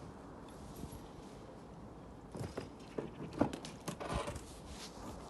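A few irregular knocks and crunches in the second half, with a short scrape about four seconds in, like footsteps or materials being handled during roof work.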